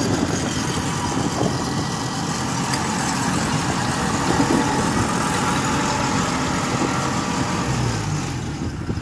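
Kubota DC-70 combine harvester's diesel engine running steadily as the tracked machine drives along.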